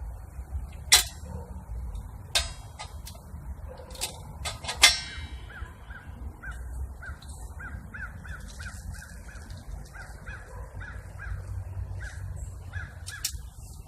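A few sharp clicks in the first five seconds, the loudest just before the calls begin, then a bird calling in a long quick series of short repeated notes, about two a second, until near the end.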